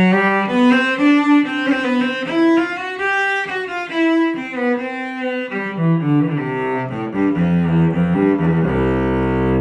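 Carbon fiber 3D-printed cello, bowed: a passage of single notes moving up and down through the middle range, then stepping down to a low note held at the end. It is played across the register to show an even response with no wolf tones.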